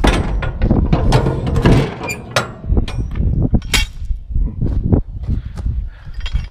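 Metal clanking and rattling, as of tools or steel parts being handled: a quick run of sharp knocks and scrapes, some with a brief metallic ring, busiest in the first two seconds and sparser after.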